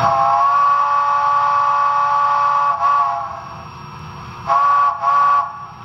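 Multi-chime steam locomotive whistle played by a Tsunami2 digital sound decoder in a model Challenger steam locomotive: one long blast of almost three seconds, then shorter blasts, over a low steady rumble.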